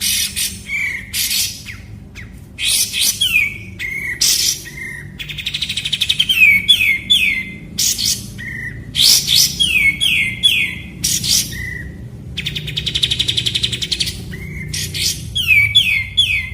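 Kapas tembak, a bulbul, singing loudly in repeated bursts: sharp chips, quick downward-sliding whistled notes, and twice a long fast rattling trill.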